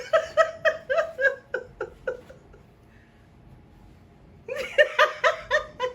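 Two bouts of high-pitched laughter, each a quick run of "ha-ha-ha" pulses that fall away over about two seconds, with a short pause between them.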